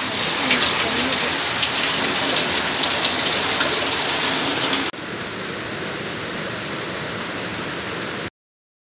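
Heavy rain falling, a dense hiss full of individual drop patters. About five seconds in it cuts abruptly to a softer, steady hiss, which stops dead shortly before the end.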